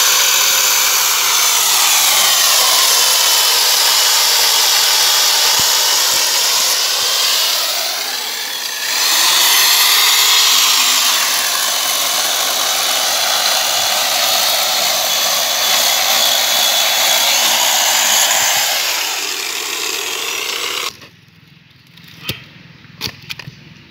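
Corded electric chainsaw cutting through a log, its whine sagging and recovering in pitch as the chain bites into the wood. It eases briefly about eight seconds in, then stops about 21 seconds in. A few light knocks follow.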